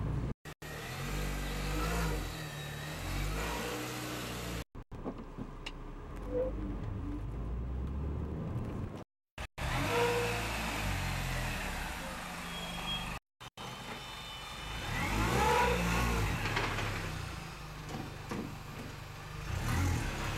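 2006 Mini Cooper S's supercharged four-cylinder engine pulling away in first gear, rising in pitch several times as it accelerates, carrying the odd noise the owners hear whenever the car starts moving in first gear, which they say is getting worse. The sound breaks off briefly four times.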